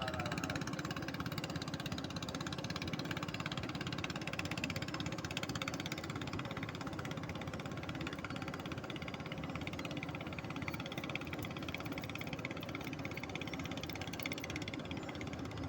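An engine running steadily, a fast even throb that holds the same pitch throughout.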